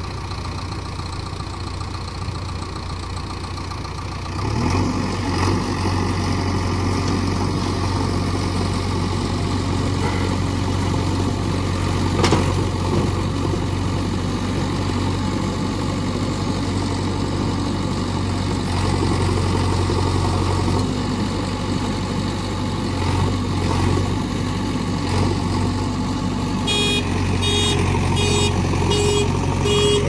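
JCB 3DX Xtra backhoe loader's diesel engine running steadily, picking up revs about four seconds in as the backhoe arm digs in the mud, with small swells in the engine note. A sharp click comes near the middle, and a rapid, evenly repeated beeping starts near the end.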